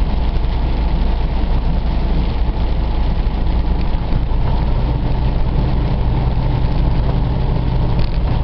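Freightliner Cascadia semi truck driving at highway speed, heard from inside the cab: a steady low diesel engine drone with even road noise over it.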